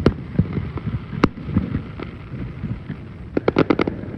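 Distant fireworks going off: a sharp bang at the start and another about a second in, then a quick string of cracks near the end, over a steady low rumble.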